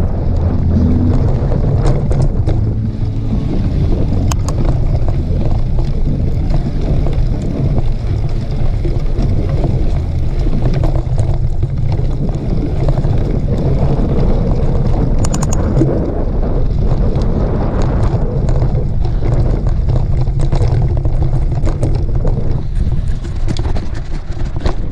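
Loud, steady wind buffeting on a camera microphone while riding a mountain bike, with scattered clicks and knocks throughout.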